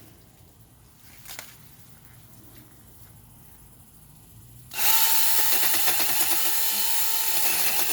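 Mellif 6-inch cordless mini chainsaw starting suddenly about five seconds in and running with a steady high whine and chain noise as it cuts through a tree branch.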